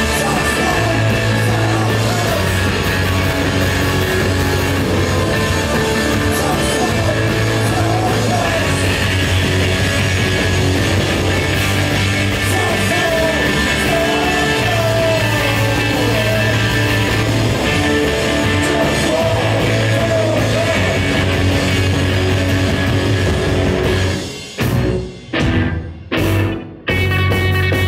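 A rock band playing live: electric guitar, bass, drums and a male singing voice. Near the end the band plays a few abrupt stop-start hits with short silent gaps between them, then comes back in.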